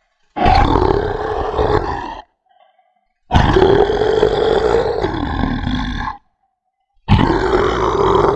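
Three long, loud angry roars, each lasting about two to three seconds with short silent gaps between them.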